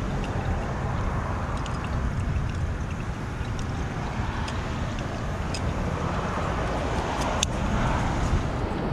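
Steady low outdoor rumble, with scattered faint clicks and one sharper click about seven seconds in from small valve parts being handled during a valve rebuild.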